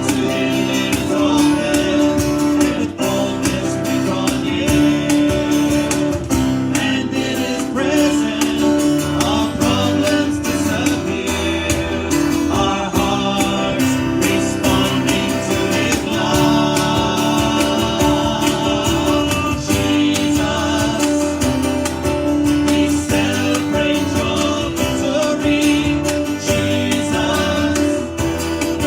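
Live worship music: acoustic guitar strummed with singing over it.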